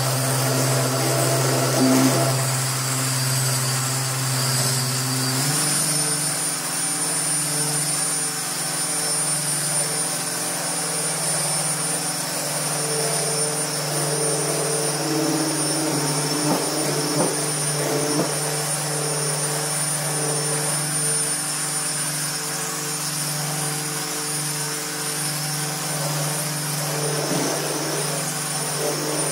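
Dual-action orbital polisher running steadily with its pad pressed on car paint, compounding out scratches. Its motor pitch steps up slightly about five seconds in.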